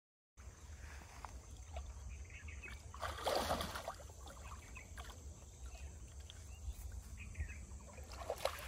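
Shallow muddy water sloshing and splashing as hands grope through it for fish, with one louder splash about three seconds in and smaller sloshes after it.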